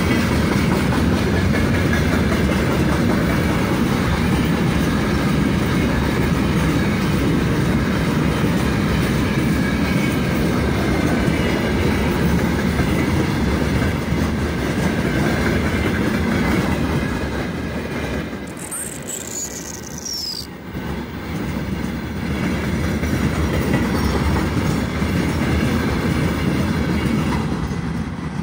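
Long freight train of open gondola wagons rolling past, its steel wheels clattering over the rails. The sound drops away near the end as the last wagons go by.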